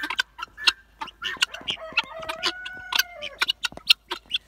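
Guinea fowl chattering in quick, irregular clicks, with one longer drawn-out call starting about a second and a half in.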